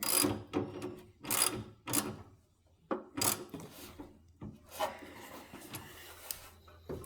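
Hand wrench tightening a nut on a riding mower's wiring: about five short rasping strokes in the first three and a half seconds, then fainter scattered ticks.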